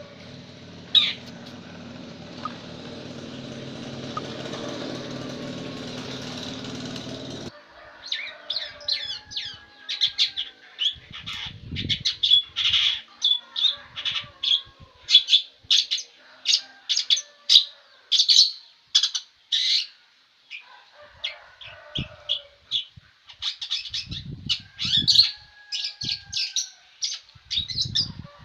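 Long-tailed shrike (cendet) singing energetically in a rapid, unbroken run of short, sharp chattering notes. The song is preceded by a steady hiss and hum that cut off abruptly about seven seconds in. A few low thumps sound under the song near the middle and again near the end.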